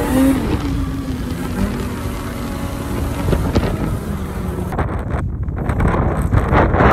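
Polaris snowmobile engine note falling and fading away as the sled slows on the snow, giving way to a steady rush of wind on the microphone. About five seconds in, the sound turns duller and gusty, with wind buffeting the microphone.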